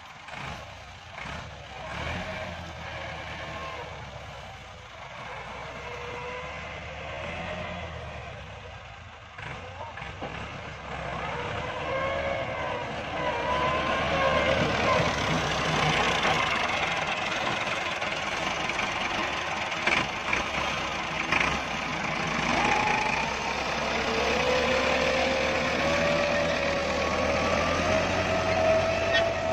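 Farm tractor's diesel engine working under load as it pulls a spring-tine cultivator through dry soil. It grows louder about halfway through, and its note drifts up and down.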